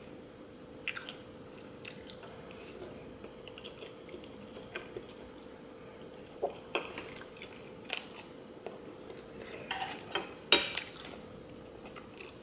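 Chopsticks clicking and clacking against a metal frying pan as rice cakes are picked up and eaten, a few scattered taps and then a quick cluster of louder clacks around ten seconds in.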